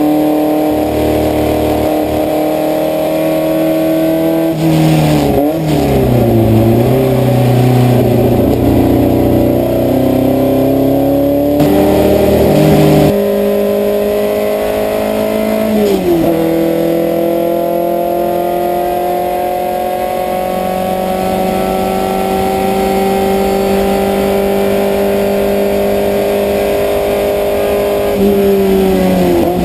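Puma race car's engine heard from inside the cockpit under hard acceleration. Its note climbs slowly and steadily, then drops sharply and climbs again about five seconds in, again around sixteen seconds, and near the end.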